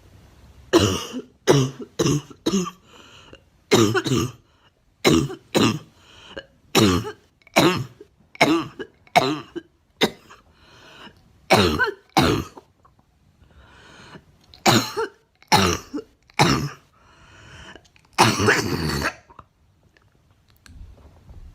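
A girl coughing over and over, about eighteen coughs mostly in quick pairs or threes with short pauses between fits, and one longer cough lasting about a second near the end.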